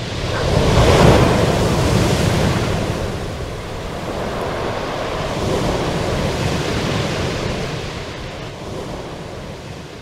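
Sea surf breaking on the shore in a continuous rush of swells, the biggest about a second in, fading out near the end.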